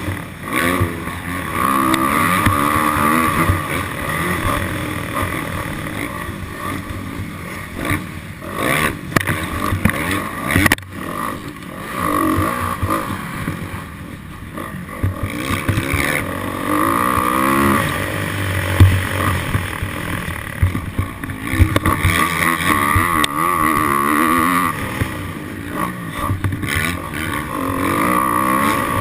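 Dirt bike engine revving up and down as it is ridden, its pitch rising and falling repeatedly.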